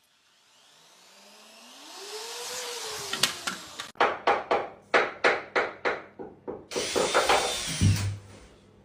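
Electric drill motor revved, its whine rising and falling. Then the trigger is pulsed in short bursts about three times a second, and near the end it is held for one longer run.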